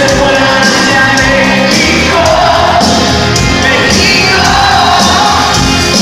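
Rock band playing live with singing over a steady drum beat and cymbal hits.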